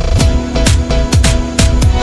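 Background music with a steady dance beat: a deep kick drum about twice a second, with crisp percussion hits and held synth tones.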